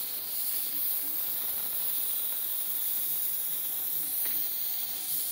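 Insignia 8-quart electric pressure cooker venting steam through its release valve in a steady, high hiss: a manual pressure release after the cooking cycle.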